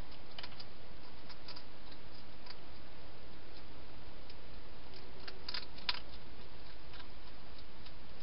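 Hedgehog eating at a feeding bowl, its chewing and crunching heard as irregular small clicks, with a quick run of louder ones a little past halfway, over a steady hiss.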